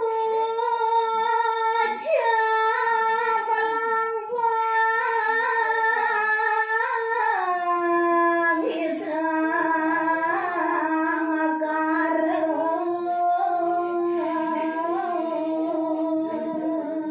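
A woman singing a solo tembang sinom in a high voice, holding long notes with small ornamented turns; about seven seconds in the melody steps down lower and stays there.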